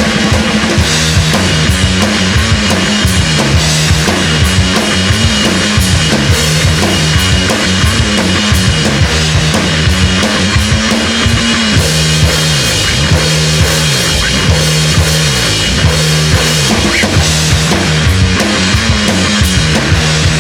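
Live rock band playing an instrumental intro: drum kit with bass drum and snare under distorted electric guitar and bass.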